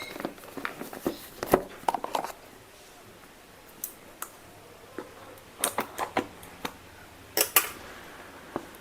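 A smartphone's retail box and packaging being handled and opened: irregular sharp clicks, taps and short scrapes of cardboard and plastic, in clusters about a second in, around two seconds, and again between five and eight seconds.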